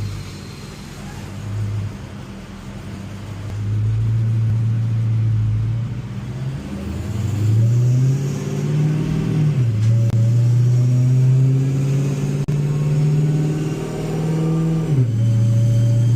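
Dodge Hellcat's supercharged 6.2-litre V8 with a 3.8-litre Whipple supercharger, idling, then brought up in revs about seven seconds in. After a brief dip it is held at a steady higher speed for about five seconds, then drops back to idle near the end, during dyno tuning of its fuelling.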